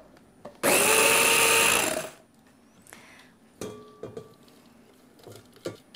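Electric mini chopper whirring steadily for about a second and a half as it purées raspberries, then stopping. A few light knocks follow as the bowl is handled.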